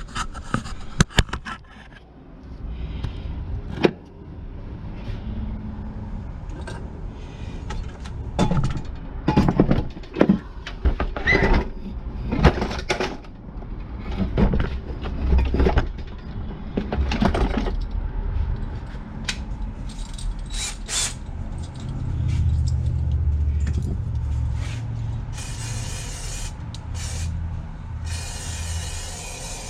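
Electric drill spinning a cylinder hone in the bore of a 12-horsepower Briggs & Stratton engine block. The stones scrape against the cylinder wall in uneven bursts over a steady motor rumble as the hone is worked up and down to lay a cross-hatch.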